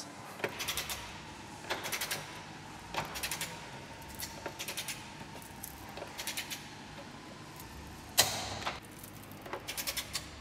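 Ratchet wrench on a socket being worked in short bursts of clicking strokes, tightening the rear subframe brace bolts, with one sharper, louder clack about eight seconds in.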